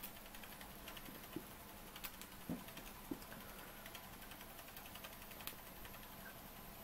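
Doll 505/4 twin-flywheel overtype model steam engine running very quietly: a faint, fast, even ticking from its mechanism, with a few soft clicks in the first half.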